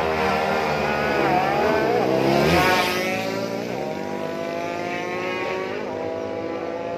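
Racing motorcycle engines revving hard, their pitch climbing and falling, loudest about two and a half seconds in.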